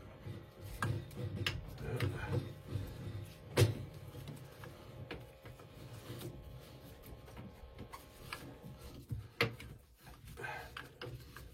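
Scattered clicks and knocks of tools and pipe fittings being handled while gas piping is threaded together, with one sharper knock about three and a half seconds in.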